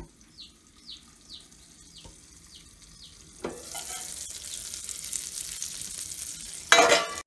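Meat patties frying in a stainless steel skillet: the sizzle jumps up when the lid is lifted about three and a half seconds in and goes on as a steady hiss, with a brief, much louder burst near the end. Before that, high falling chirps repeat about twice a second.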